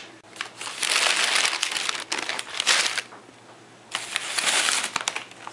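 Plastic carrier bag with wrapped sandwiches inside crinkling as it is handled, in two stretches with a short lull about three seconds in.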